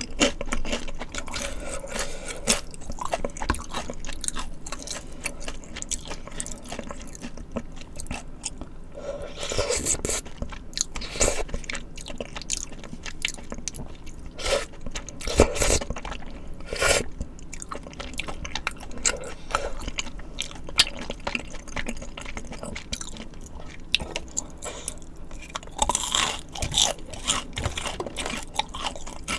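Close-miked eating of spicy tteokbokki and fried snacks: repeated crunchy bites and chewing, with many small clicks and a few louder crisp bites along the way.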